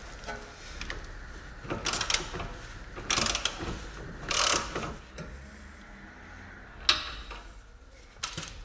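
A ratchet wrench and socket clicking in short strokes as the bolts holding the front suspension's banana arm are undone, with metal clinks. There are about five bursts about a second apart.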